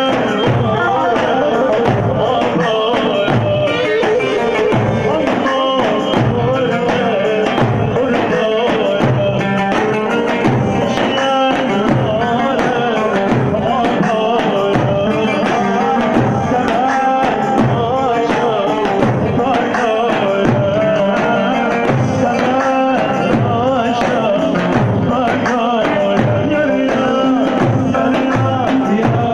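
Loud Arabic wedding music with a steady drum beat under a melody line.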